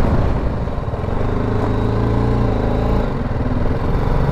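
Motorcycle engine running while riding, its pitch rising gently, then changing about three seconds in.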